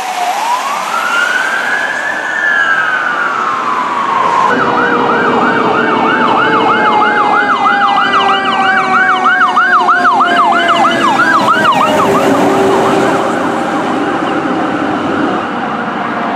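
Fire truck sirens. A slow wail climbs and then falls over the first four seconds. About four seconds in it switches to a fast yelp of about three cycles a second, over a long, steadily falling tone, and this softens into a busier, fainter siren mix near the end.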